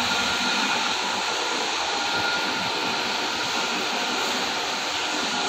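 Steady whirring of machinery, an even rushing noise with a few faint high steady tones, like a motor-driven fan or blower.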